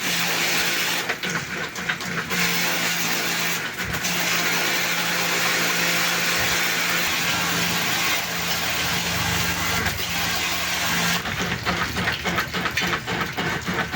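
Electric pressure washer running with a steady motor hum while its jet hisses, spraying water to clean a split-type air conditioner. The spray stops briefly a few times and turns on and off in quick bursts near the end.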